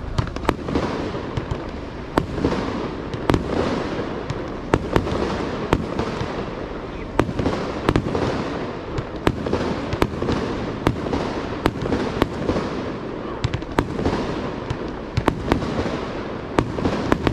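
Aerial fireworks display: shells bursting in quick succession, sharp bangs at about one to two a second at uneven spacing over a steady rumble.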